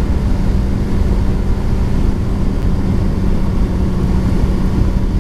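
Kawasaki Ninja ZX-6R's inline-four engine running at a steady speed while the motorcycle cruises, holding one even pitch with no revving or shifting.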